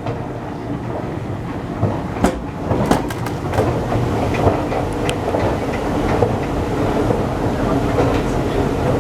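1986 Montgomery escalator running: a steady mechanical rumble with scattered clicks and knocks, loudest about two to five seconds in.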